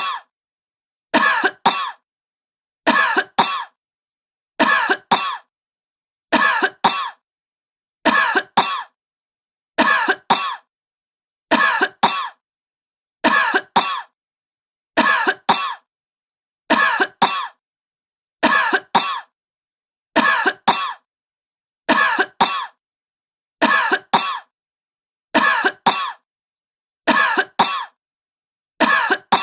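A woman with a sick cough, coughing in pairs of short coughs. The same double cough repeats at an even pace, about every second and three-quarters, with complete silence between.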